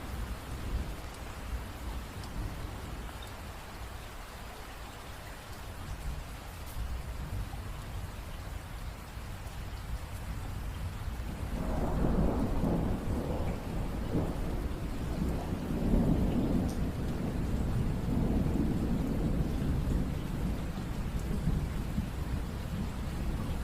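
Steady rainfall with a long roll of thunder that starts about halfway through and rumbles in several swells before easing off near the end.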